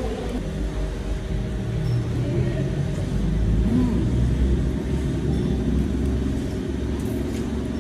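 Low rumble of a road vehicle passing, swelling to its loudest about four seconds in and then easing, over a steady faint hum.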